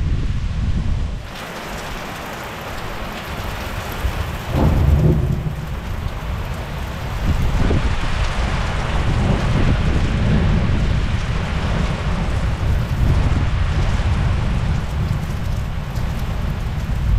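Thunderstorm at night: thunder rumbling over steady rain, with a louder rumble about five seconds in. The rain hiss grows heavier and steadier from about eight seconds in.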